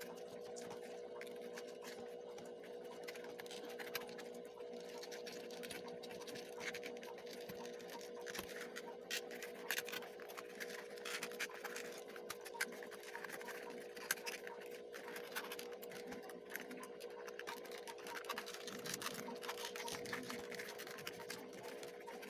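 Paperboard pieces of a 3D jet plane puzzle being handled and slotted together: irregular scratching, rubbing and light clicks of cardboard on cardboard, over a steady faint hum.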